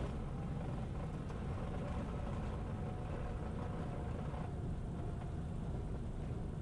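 Cessna 337 Turbo Skymaster's twin push-pull piston engines running steadily at low power as the plane taxis on the ground after landing, heard as a constant low rumble from the cabin.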